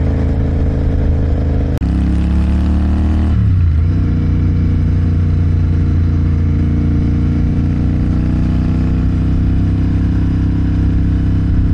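Motorcycle engine heard from the rider's seat over steady wind rush. About two seconds in there is a sharp click, the engine pitch climbs as it accelerates, then falls at a shift about a second and a half later and holds steady at cruising speed.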